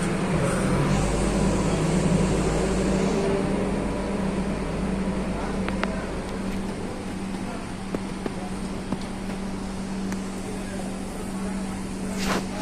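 Steady electrical machine hum, with a low drone in the first few seconds, a few faint clicks, and two short hissing bursts near the end.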